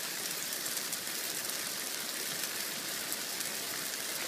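Onion-tomato sauce with eggs sizzling steadily in a large frying pan on the stove.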